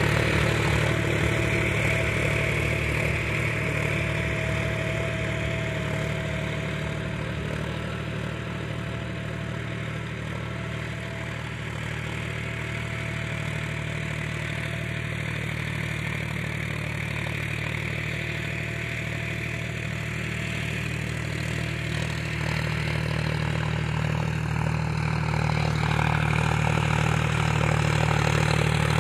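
John Deere 5050D tractor's three-cylinder diesel engine running steadily under load while pulling a laser land leveler through dry soil. It is louder near the start and end and fainter in the middle as the tractor moves away and comes back.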